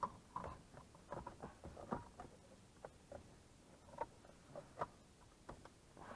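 Light, irregular clicks and scratchy taps of hands handling the power-window switch and its wooden console trim piece.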